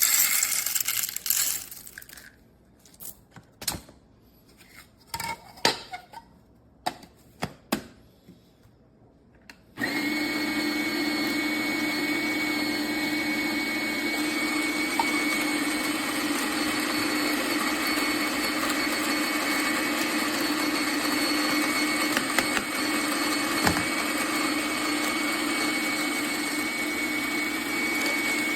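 A brief loud noisy burst and a few scattered knocks and clicks, then about ten seconds in the Fellow Opus conical burr grinder's motor starts and runs steadily with a constant whine.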